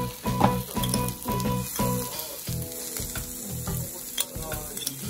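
Takoyaki batter sizzling in the wells of an electric takoyaki pan, with a few light clicks of a metal spoon in the first two seconds.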